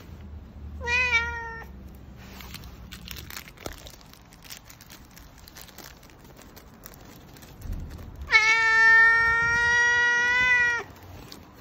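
Tabby cat meowing twice: a short meow about a second in, then a long, drawn-out meow held at a steady pitch near the end.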